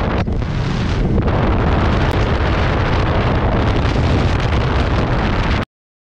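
Wind rushing and buffeting over a helmet-mounted microphone on a moving motorcycle, with the bike's road and engine noise underneath. It cuts off abruptly to total silence near the end.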